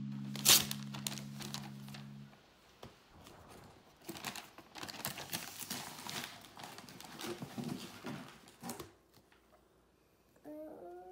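Gift wrapping paper crinkling and tearing as a toddler unwraps a present, an irregular run of rustles for several seconds that then stops. A short child's vocal sound comes near the end.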